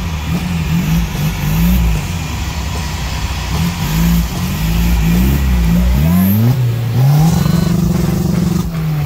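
Off-road buggy's engine revving hard in repeated swells, its pitch climbing and dropping again and again as it claws up a loose dirt bank. Near the end it is held at high revs for over a second, then falls away.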